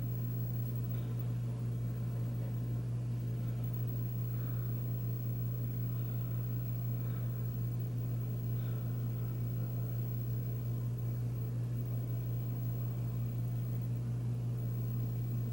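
Union ceiling fan running, its motor giving a steady low hum.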